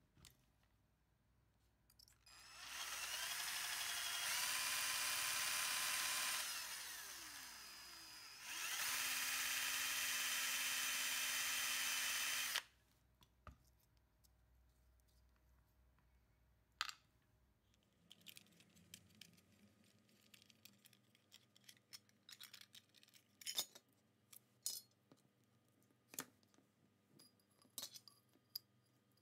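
Electric power drill running in two spells: it speeds up and runs steady, slows partway, then runs steady again and stops abruptly about twelve and a half seconds in. Later, scattered light clicks and taps.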